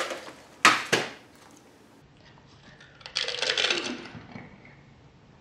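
Doritos tortilla chips being poured out of their bag onto a plate: two sharp clatters about a second in, then a short rustle of the chip bag a couple of seconds later.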